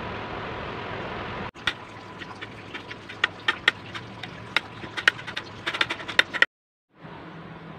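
Knife chopping boiled eggs on a plate: quick, irregular sharp taps of the blade striking the plate, starting about a second and a half in and stopping abruptly near the end. A steady hiss comes before the taps, and a low steady hum follows a short silence.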